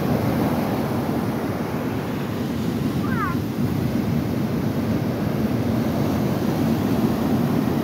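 Ocean surf breaking and washing up a sandy beach, a steady rushing, with wind buffeting the microphone. A few brief high rising chirps come about three seconds in.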